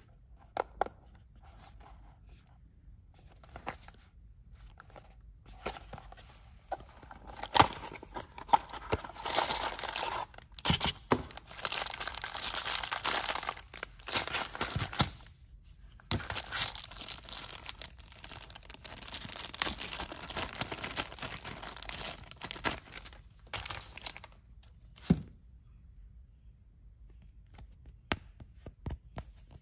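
Hands unwrapping small packaged items: clear plastic bags crinkling and tearing, with light clicks and taps of cardboard and the items being handled. The first few seconds hold only scattered clicks. Long stretches of dense crinkling follow in the middle, and the end is quieter handling with one sharp tap.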